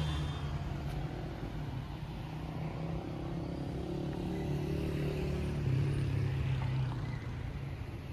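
City street traffic: car engines running close by in slow, busy traffic. One vehicle grows louder about six seconds in and then fades.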